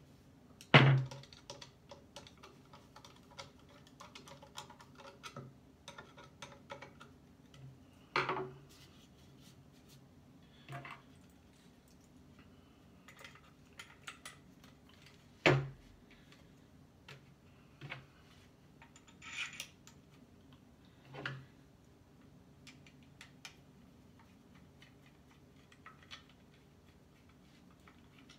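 Hand tools and gun-kit parts clicking, clinking and knocking as a muzzleloader's barrel and wooden stock are handled and worked with a screwdriver: scattered light clicks with a few sharper knocks, the loudest about halfway through.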